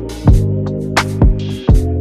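Background music with a steady beat: deep drum hits that drop in pitch and short ticks over held chords.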